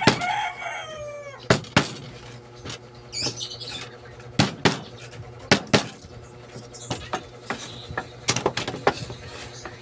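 Irregular sharp clicks and taps as copper winding wire is worked into the slots of an alternator stator with a metal-shafted hand tool. There is a falling, squeaky call in the first second and brief high chirps about three seconds in.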